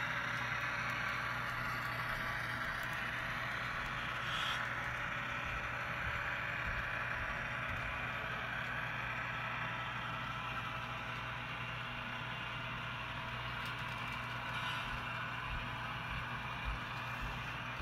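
Model railroad freight cars rolling past on the track: a steady rolling hiss of small wheels on the rails over a low hum, with a few light clicks near the end.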